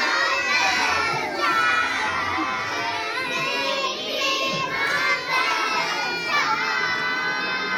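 A crowd of children shouting and cheering, many high voices at once without a break.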